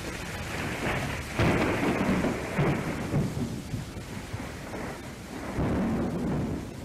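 Thunderstorm sound in a dark ambient track: rolls of thunder rumbling over a steady rain-like hiss, the loudest roll starting about a second and a half in and another about five and a half seconds in.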